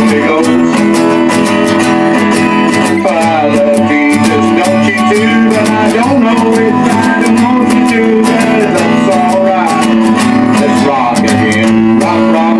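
Guitar strummed in chords with a steady, even rhythm.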